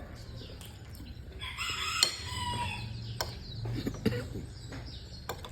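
A rooster crowing once, starting about a second and a half in, with a few light clicks around it.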